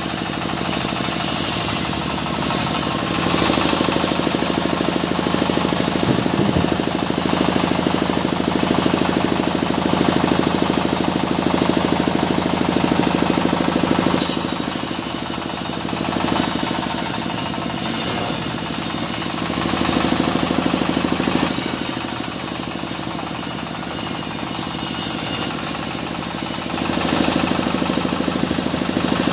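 Engine-driven sawmill running steadily while its blade cuts mahogany, with spells of harsher, higher cutting noise at the start and again through much of the middle and later part.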